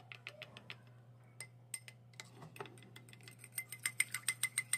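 Steel spoon clinking against a glass bowl as it whisks a thin flour-and-water batter. The taps are sparse at first, then come quicker and louder, about six a second, in the last second and a half.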